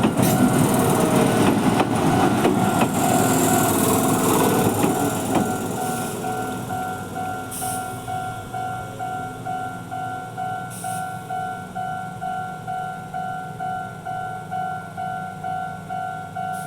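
Electric train running past through a Japanese railway level crossing, loud for the first few seconds and then fading away. Throughout, the crossing's electronic warning bell keeps ringing a two-tone ding about one and a half times a second, standing out on its own once the train has gone.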